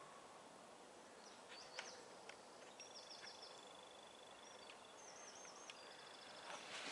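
Near silence in woodland, with faint high song from a small bird: two short runs of quickly repeated notes. A few faint clicks come about two seconds in.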